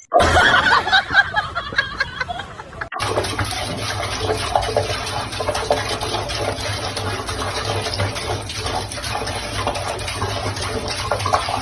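Tap water running steadily into a sink, starting about three seconds in.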